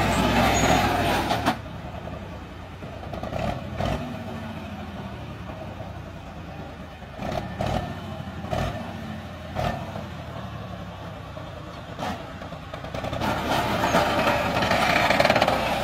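Tractor-drawn mobile brick-making machine running, its engine noise dropping sharply about a second and a half in. Several short knocks follow through the middle, and the running sound rises again near the end.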